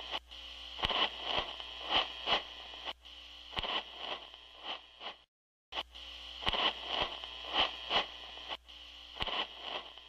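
Hissing static with irregular crackles and pops. It drops out completely for about half a second a little over five seconds in, and the same crackly stretch then seems to play again.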